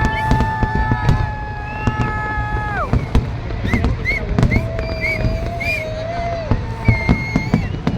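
A fireworks display: a rapid, irregular series of bangs over a steady low rumble. Long held tones sound over the top, one lasting about three seconds and another a few seconds later, along with several short rising-and-falling whistles.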